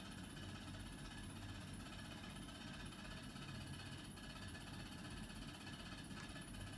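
Quiet room tone: a steady low hum, with a faint tap about four seconds in and another near the end.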